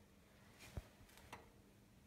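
Near silence with two short, faint knocks, a little under a second in and again about half a second later, over a faint steady hum.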